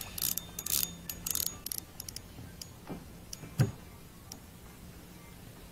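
Spinning fishing reel cranked in short clicking, rattling bursts as line is wound in, followed by a single thump about three and a half seconds in.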